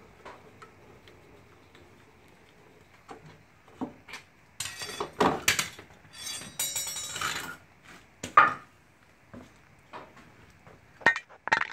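A car's scissor jack and its steel crank rod being pulled out and set down on a concrete floor, with wooden support blocks moved. Scattered metal clinks and knocks build to a loud clattering and scraping in the middle, followed by a single sharp clank.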